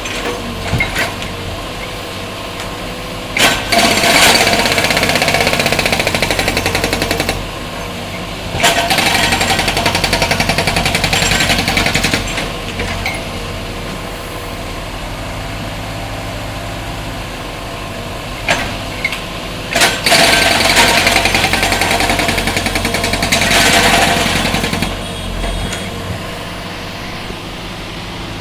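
Road-breaking machine's concrete breaker hammering a road surface in three long bursts of rapid blows, with the machine's engine running steadily between them and a few single knocks.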